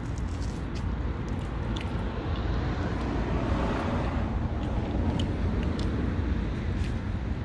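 A car passing on the road, its noise swelling to a peak about halfway through and fading away, over a steady wind rumble on the microphone, with a few light clicks.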